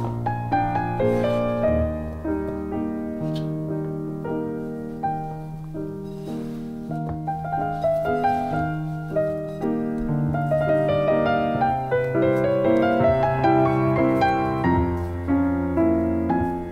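Background piano music: a melody of struck notes over held low notes.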